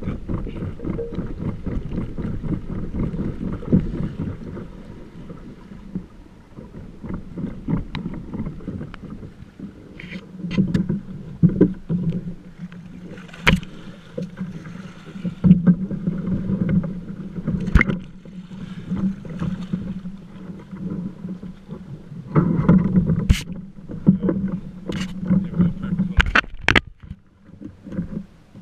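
Choppy water rushing and splashing against a kayak's hull as it moves along, with scattered sharp knocks and splashes against the boat.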